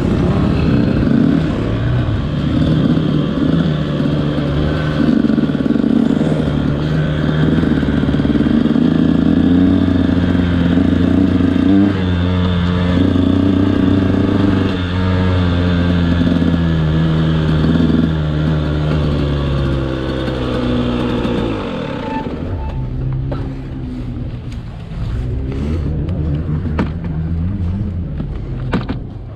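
KTM SX 125 two-stroke motocross engine running at low, varying revs as the bike rolls slowly. About 22 seconds in, the engine's pitch falls and it stops, leaving a few light clicks and knocks.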